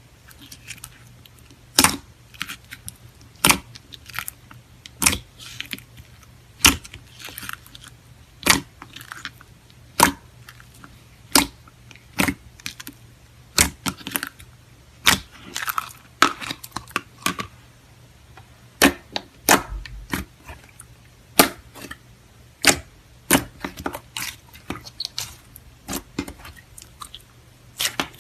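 Clear slime worked by hand, giving sharp popping clicks about every one and a half seconds, with softer crackles and squelches between the pops.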